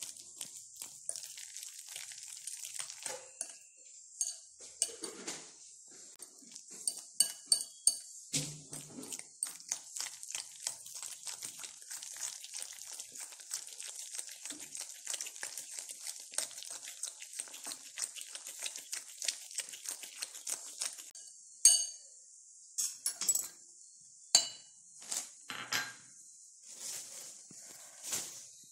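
A metal utensil stirring and mashing a thick cake mixture in a glass bowl, scraping and clicking rapidly against the glass. About three-quarters of the way through the stirring stops and it turns to a few separate, sharper clinks of metal on glass.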